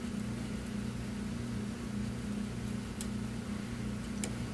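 Steady low hum over a faint background hiss, with two faint ticks near the end.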